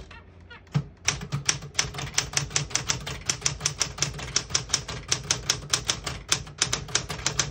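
Keys of a 1967 Smith-Corona Super Sterling manual portable typewriter being typed in a quick, uneven run of sharp clacks, about five or six a second, starting about a second in, as a sentence is typed in red ribbon.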